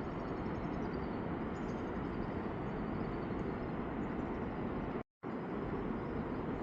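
Steady low rushing outdoor noise, broken by a brief dropout about five seconds in.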